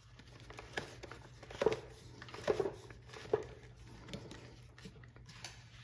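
Plastic bump-feed head of an Atlas 80V string trimmer being twisted by hand to wind new line onto its spool, with soft clicks a little faster than once a second as it turns.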